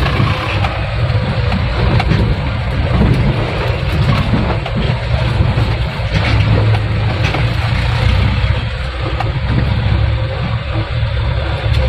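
Heavy diesel machinery engine running steadily, with a few faint short knocks.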